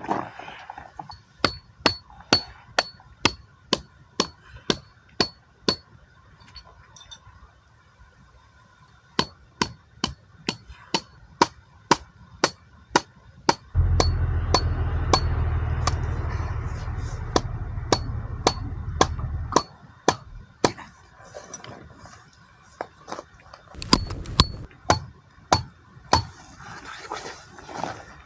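Tent pegs being hammered in: runs of sharp metallic strikes, about two a second, each with a short ring, pausing for a few seconds between runs. A low rumble sounds for about six seconds in the middle.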